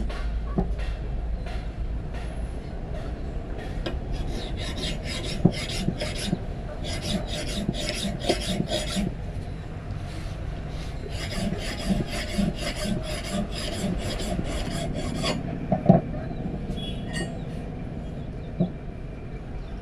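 Hand file rasping over the steel blade of a large forged meat cleaver, shaping its edge: quick back-and-forth strokes in two runs with a short pause about ten seconds in. A single sharp knock sounds near the end.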